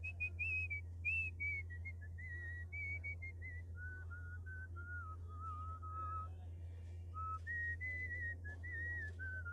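A faint whistled tune for the end card: a single clear melody line stepping from note to note, dropping to lower notes in the middle and rising again near the end. A steady low hum runs underneath.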